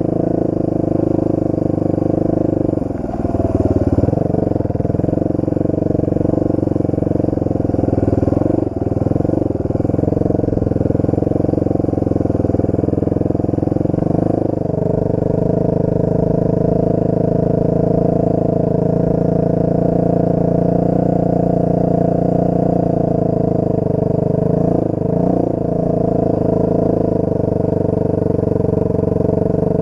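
Off-road motorcycle engine running under way, its pitch mostly steady, with brief dips and rises as the throttle is eased and opened again a few times.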